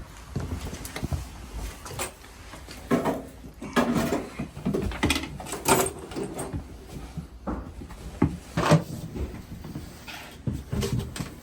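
Irregular knocks, clicks and clunks of equipment being handled, at uneven intervals of a second or two.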